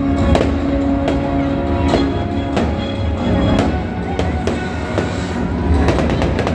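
Fireworks going off in a string of sharp bangs, about one or two a second with a quick cluster near the end, over loud music with long held notes and a heavy bass.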